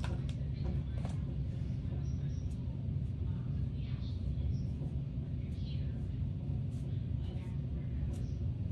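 Coshare negative-ion hair dryer running steadily on its highest fan speed, a continuous low rumble of blowing air, with faint scattered clicks.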